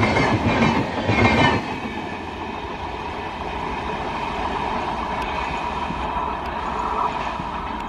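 Passenger train coaches rolling past close by, wheels clattering over the rail joints, until the last coach goes by about a second and a half in; the sound then drops to a steadier, quieter rumble as the train draws away.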